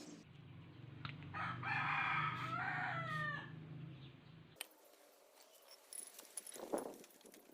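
A rooster crowing once, a call of about two seconds that drops in pitch at its end, over a low hum that cuts off just after. Then a few light clicks and a single knock.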